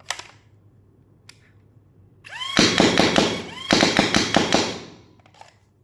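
AIT Lightning battery-powered foam dart blaster spinning up with a rising whine and firing two rapid full-auto bursts of darts, about a second each, starting about two and a half seconds in and again just under four seconds in. A single click comes right at the start.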